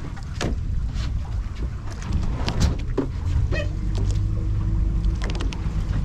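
Boat at sea: a steady low rumble with water splashing against the hull and wind on the microphone.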